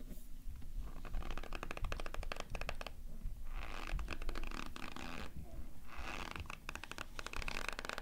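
Dry cornstarch powder squeaking and crunching as it is chewed, in three bouts of rapid fine crackles with short pauses between.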